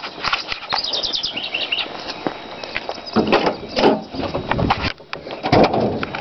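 Clicks, knocks and rustling of hands working a 1984 Chevrolet El Camino's open driver's door and hood release, with a few louder knocks in the second half. A short run of high chirps comes about a second in.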